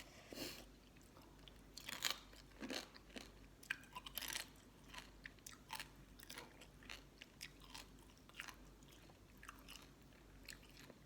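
Close-up chewing and crunching of green mango salad with pickled sea crab: irregular crisp crunches and mouth clicks, the loudest about two and four seconds in.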